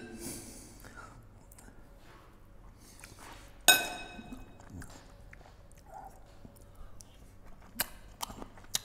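A metal spoon set down in a ceramic bowl gives one sharp, ringing clink about a third of the way in. Otherwise quiet chewing and a few soft clicks near the end.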